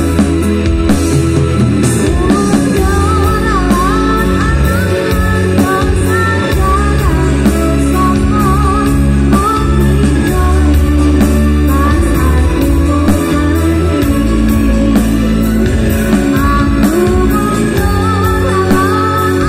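Loud live dangdut koplo music from a keyboard-led band with a steady drum beat and heavy bass, played through a PA. Several singers sing the melody together into microphones over it, with a break in the vocals in the middle.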